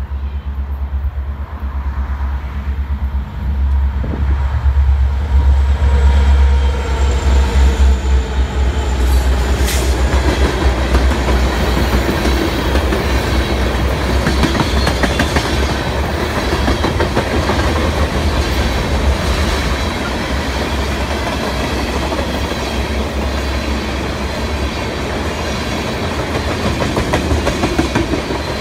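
Freight train passing close by: the diesel locomotives' deep engine rumble fills the first dozen seconds, then the tank cars roll by with a steady clickety-clack of wheels over the rail joints.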